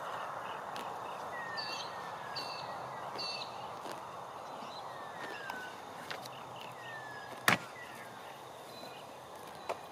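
Birds calling through a steady outdoor hush, with repeated short falling whistles and higher chirps. A single sharp knock comes about seven and a half seconds in, and a fainter one near the end, as a rider climbs from a mounting block into the saddle of a horse.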